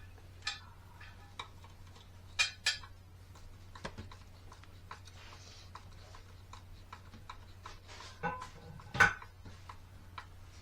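Scattered metallic clicks and clinks of screws and hand tools being handled while a pit bike's body panel is screwed back on, the loudest knocks about two and a half seconds in and again near the end, some with a short ring. A faint steady low hum lies underneath.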